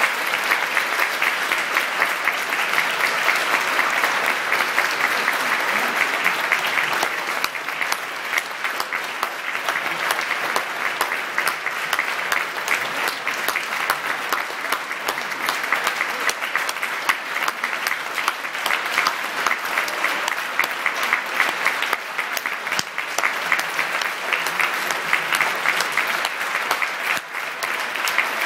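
Concert-hall audience applauding steadily, many hands clapping at once.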